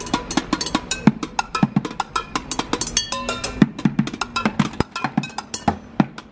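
Bucket drumming: a busker beating a fast, busy rhythm with drumsticks on upturned plastic buckets, frying pans and pots, several strikes a second, the metal pans ringing briefly after some hits.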